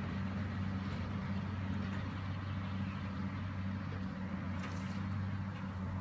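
Tractor pulling a round baler across a hay field, its engine running at a steady pace with a low, even hum.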